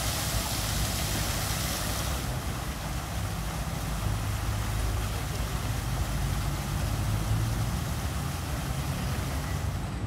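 Fountain jets splashing into the basin. The hiss of falling water drops about two seconds in as the tall jets die down, over a steady low rumble.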